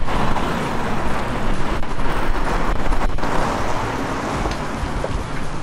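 Street traffic noise: a steady rush of passing road vehicles that eases off toward the end.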